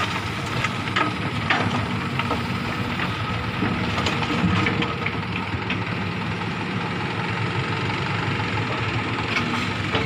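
Diesel engine of a Hitachi hydraulic excavator running steadily as it loads a dump truck, with the truck idling underneath. A few sharp clunks in the first couple of seconds, and one about four seconds in, fit soil and rock dropping from the bucket into the steel dump bed.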